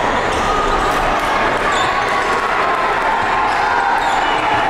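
Live basketball game sound in a packed gym: a basketball dribbling on the hardwood court and short high sneaker squeaks over a steady hum of crowd voices.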